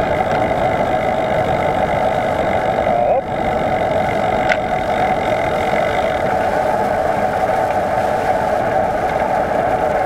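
Steady ride noise from a moving bicycle: wind rumbling over the microphone, with a constant mid-pitched hum. The noise dips briefly about three seconds in.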